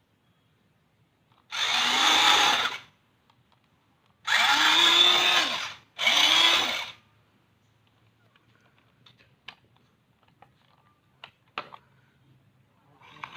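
Handheld electric power tool run in three short bursts, its motor spinning up and winding down each time. Light clicks and knocks follow in the second half.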